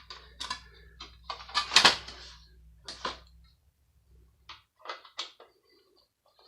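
Irregular clicks and knocks of a metal power supply unit being handled and set down, the loudest cluster just under two seconds in, then a few faint clicks. A low steady hum runs underneath and stops about halfway through.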